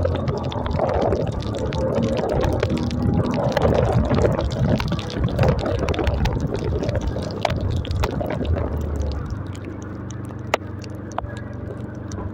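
Small motorcycle riding through heavy rain on a wet road: the engine runs under a wash of wind and water noise, with scattered sharp ticks of raindrops striking the phone. It quietens somewhat near the end.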